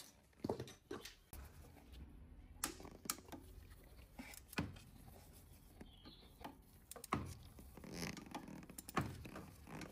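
Faint, irregular metallic clicks and knocks from a long breaker bar on the alternator's 13 mm mounting bolt as the bolt is cracked loose.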